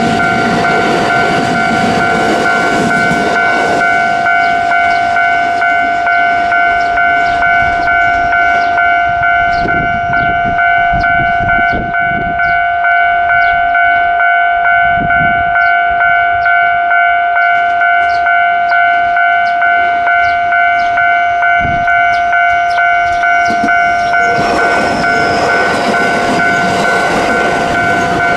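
Japanese level crossing's electronic warning bell ringing continuously, pulsing about one and a half times a second, while electric trains pass. The rumble of a train on the rails is heard at the start and again from about 24 seconds in, with a run of sharp wheel clicks over the rail joints in between.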